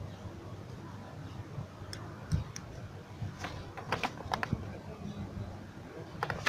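A sheet of paper crackling and crinkling as it is handled close to the microphone: a few crinkles about two seconds in, a denser cluster around four seconds, and more just at the end.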